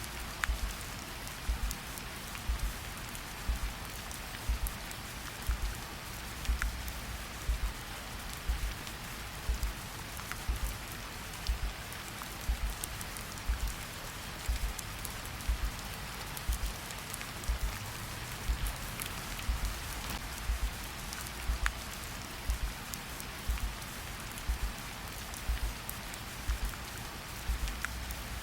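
Steady rain with a slow heartbeat laid over it, about one beat a second, each beat a low double thump.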